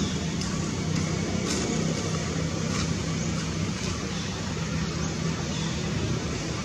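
Steady low mechanical hum over a constant background noise, with a few faint ticks.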